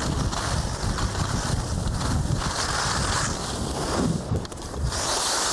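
Wind buffeting the microphone with a steady low rumble, and rushes of hiss that swell and fade midway and again near the end.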